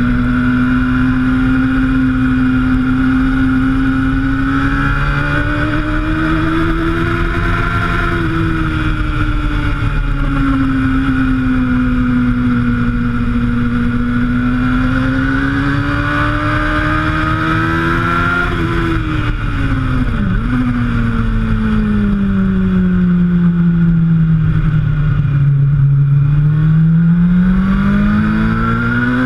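Suzuki GSX-R750 K1's inline-four engine heard onboard at high revs on a track lap, its pitch rising and falling with the throttle through the corners, over wind rush on the camera. About two-thirds through the revs dip sharply for a moment, then sink to their lowest as the bike slows for a corner, and climb again near the end as it accelerates out.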